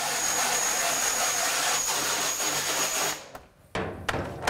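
Pressure washer spraying water onto a screen-printing screen to wash out the emulsion: a steady hiss of spray with a thin high whine, which cuts off about three seconds in, followed by a couple of light knocks.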